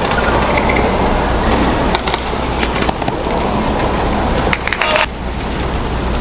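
Badminton rally over a steady arena crowd murmur: sharp racket strikes on a shuttlecock, with a quick cluster of hits about five seconds in.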